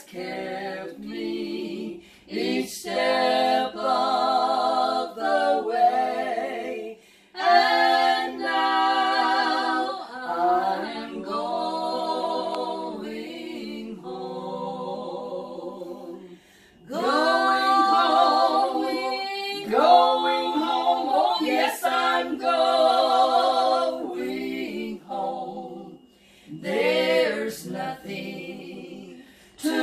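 Three women singing a worship song together a cappella, unaccompanied voices, in long phrases broken by short pauses for breath about every nine or ten seconds.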